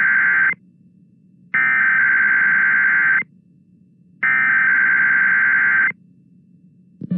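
Emergency Alert System SAME header: three identical bursts of screechy two-tone digital data, each about a second and a half long with a second's gap between them. A steady buzzing tone starts at the very end.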